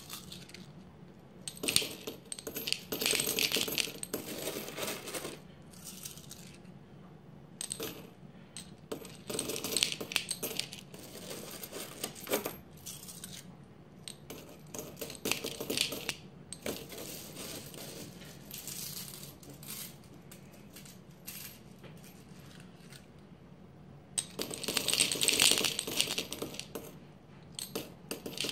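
Handfuls of copper pennies poured into a glass jar already holding copper pennies, clinking and jingling copper on copper. They come in several separate pours with short pauses between, the loudest one near the end.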